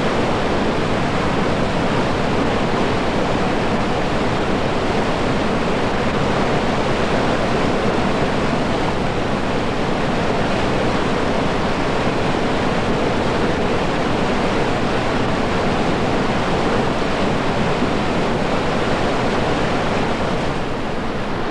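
Whitewater rapids rushing steadily: a loud, even wash of fast water with no break, easing slightly just before the end.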